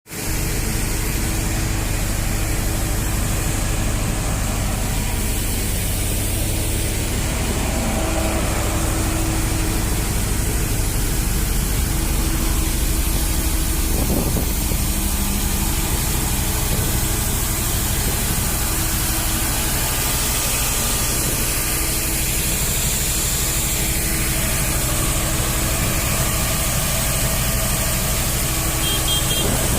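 A large engine or machine running steadily: a continuous low drone with a steady hum, unchanging throughout.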